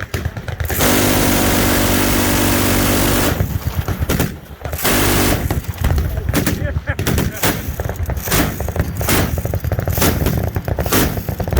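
Machine guns firing: one long continuous burst of about two and a half seconds, fired so fast that it sounds as a steady buzz, then a shorter burst and strings of rapid shots that follow one another closely.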